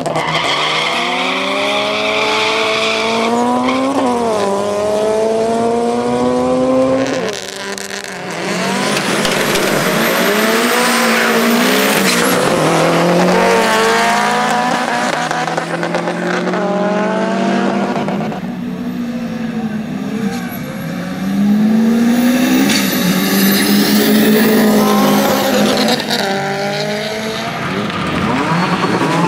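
Modified street cars launching in drag races, their engines revving hard and climbing in pitch through the gears, with drops at each shift, and tyres squealing. This happens over several runs, one after another.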